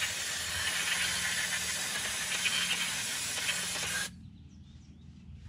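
Steady high hiss of a pressurized spray blasting mud and grime off brake parts, cutting off suddenly about four seconds in.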